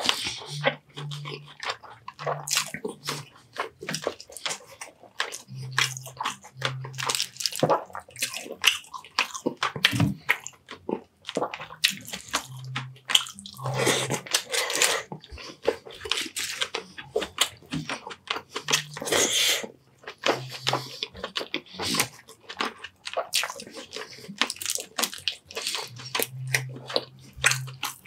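Close-miked mukbang eating sounds: soft, wet chewing and lip smacking of baked sea bass and rice, with many irregular clicks. Short, low closed-mouth hums come and go throughout.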